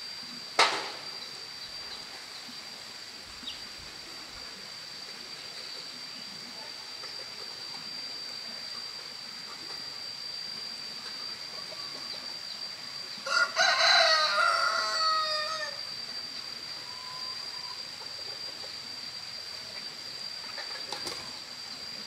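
A rooster crows once, a call of about two and a half seconds ending in a falling note, over a steady high-pitched insect drone. A single sharp click sounds just after the start.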